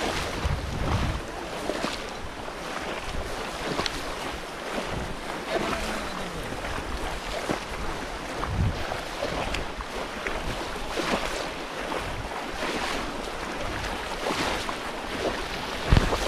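Water splashing and sloshing as many people wade through shallow water, with wind buffeting the microphone now and then.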